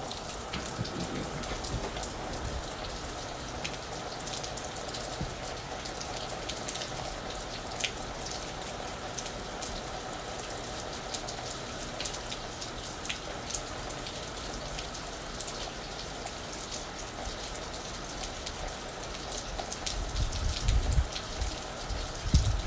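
Steady rain falling on a roof, with many individual drops ticking sharply over an even patter. A low rumble builds in the last few seconds.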